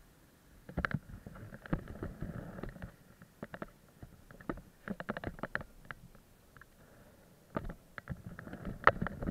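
Irregular knocks, rubs and rattles from a hand-held action camera being handled and moved about, in uneven clusters of short bumps.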